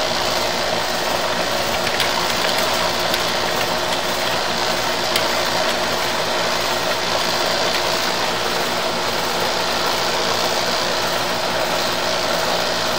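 Steady, unchanging hum of a running HVAC compressor unit, a constant machine drone with an even hiss over it.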